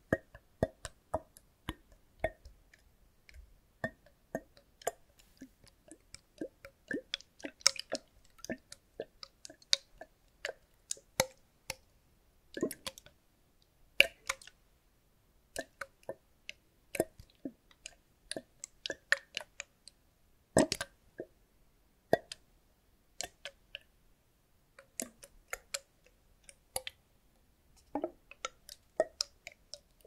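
Clear liquid sloshing inside a capped plastic bottle tilted back and forth close to the microphone, making irregular plops and glugs. The pops come unevenly, several a second at times, with a few louder ones.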